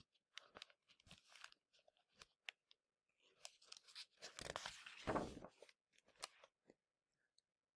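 Faint rustle and swish of a paper page of a hardcover picture book being turned by hand, the main swish about four to five seconds in, with a few soft clicks of fingers on the paper before it.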